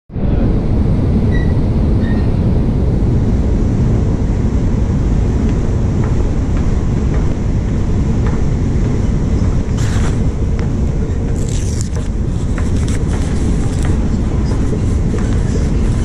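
Long escalator running, a loud steady low rumble heard while riding down it, with a few light clicks about two-thirds of the way through.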